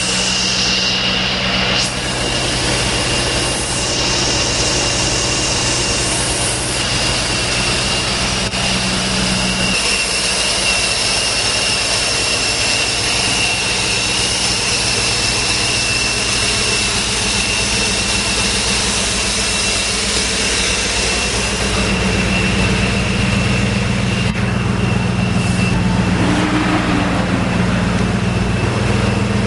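BMW E39 V8 engines idling steadily: first the supercharged 540i, with a constant high-pitched whine over the engine note, then, about three-quarters of the way through, the note changes as the E39 M5's V8 idles.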